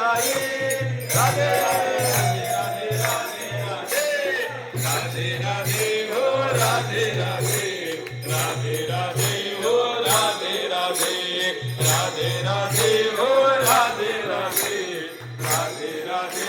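Hindi devotional bhajan music: a melody over a steady beat of percussion, struck about two to three times a second.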